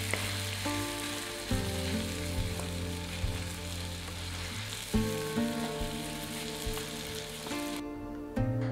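Quail-egg roast masala frying and sizzling in oil in a pan, a steady hiss that cuts off abruptly near the end. Soft background music plays throughout.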